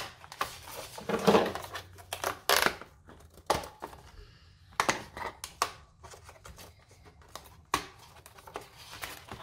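Scissors snipping through clear plastic packaging, with plastic crinkling and rustling between the cuts: an irregular string of snips and crackles.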